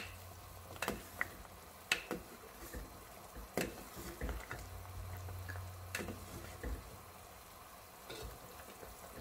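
Metal ladle stirring pork rib soup in a stainless steel pot, knocking against the pot several times with sharp clinks at irregular intervals.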